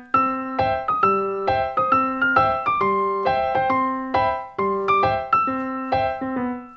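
Piano playing a melody over chords, struck notes ringing and dying away in a steady, moderate rhythm.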